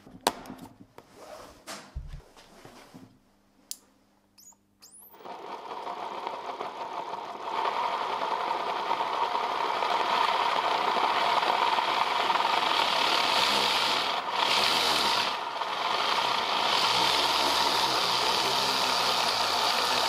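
A few clicks of handling, then the 12 V DC micro motor of a 3D-printed paint mixer starts about five seconds in and speeds up, spinning a lily impeller in a cup of solvent-thinned paint. It then runs as a steady whirr, dipping briefly twice near the end.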